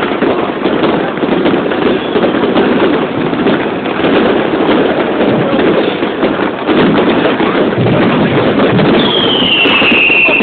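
Many fireworks and firecrackers going off at once: a loud, continuous barrage of cracks and bangs. Near the end, a high whistle falls in pitch and then holds.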